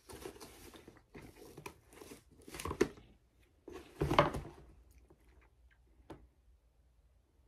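Rummaging in a leather handbag: the flap and its contents rustle and scrape in several bursts, with two sharper knocks about three and four seconds in. A few faint clicks follow as the glass perfume bottle is handled.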